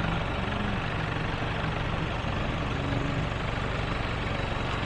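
Tipper truck engine running steadily while the truck dumps its load of rock.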